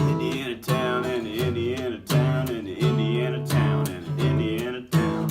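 Acoustic guitar strummed in a steady rhythm, a strum about every three-quarters of a second, played live as a tribute song.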